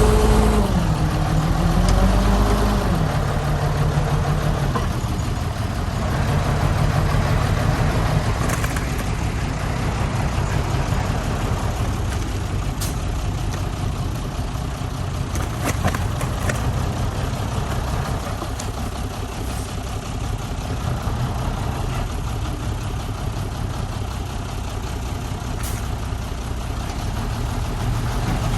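Heavy diesel engine of earthmoving machinery running. Its pitch dips and rises a few times in the first few seconds, then it settles to a steady run, with a few faint clicks or knocks later.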